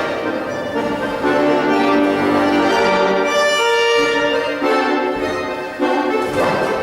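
Accordion music: a melody over held chords, with a fresh loud phrase coming in near the end.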